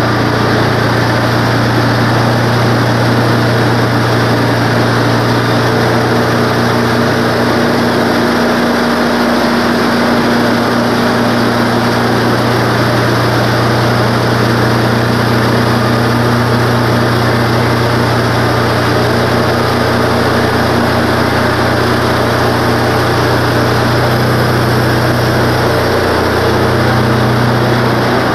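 Wood-Mizer LT15 band sawmill running steadily under load as its band blade cuts lengthwise through a pine log. The engine's pitch dips briefly about a third of the way in and again near the end.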